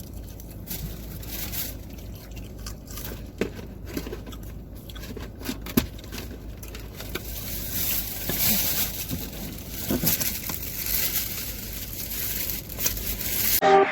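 Handling noises: crinkling of paper or plastic food packaging with scattered small clicks and knocks, over a steady low rumble, growing busier in the second half and stopping abruptly near the end.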